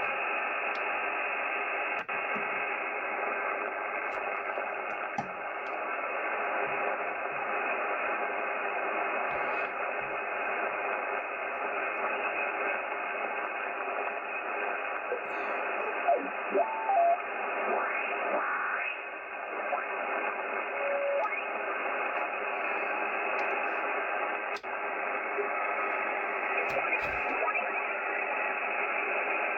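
Shortwave receiver in SSB mode on the 80 m band giving a steady, narrow-band hiss of static through its speaker. About halfway through, a few short whistling tones slide past as the tuning crosses weak signals.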